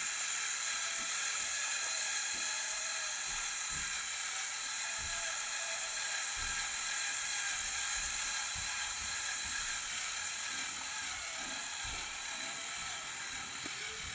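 Four Lego Power Functions XL motors driving a 1:8 Lego Technic Ferrari 488 RC model directly, with no gearbox: a steady high-pitched motor-and-gear whine with occasional faint knocks.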